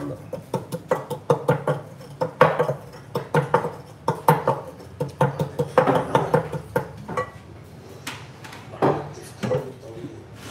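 Wooden pestle pounding garlic cloves in a white bowl: a quick, rhythmic series of knocks of wood striking the bowl as the garlic is crushed, easing off near the end.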